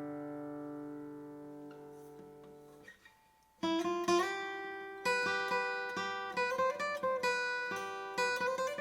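Martin CEO-7 acoustic guitar: a chord rings out and fades away, then after a short silence about three and a half seconds in, playing resumes with picked notes and chords.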